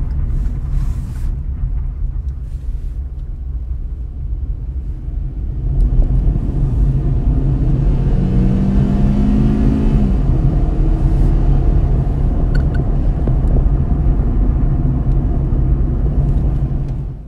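Car driving, heard from inside the cabin: a steady low engine and road rumble, with the engine note rising for a couple of seconds near the middle as the car accelerates.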